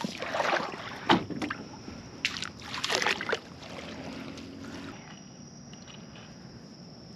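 Water splashing and sloshing around a kayak as a landing net is moved through shallow water, with several short splashes and knocks in the first three seconds or so. After that it settles to a faint steady hiss.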